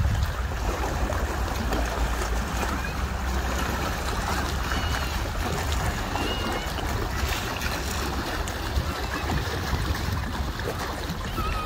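Lakeshore ambience: a steady low wind rumble on the microphone and small waves washing against the shore rocks, with a few short high chirps.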